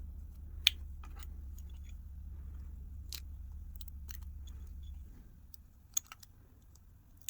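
Light, scattered clicks and taps of small parts and tools being handled on a phone's frame during disassembly, over a low hum that stops about five seconds in.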